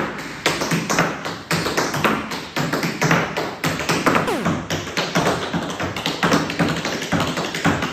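Tap shoes striking a hard studio floor in a fast, dense run of taps, many strikes a second without a break.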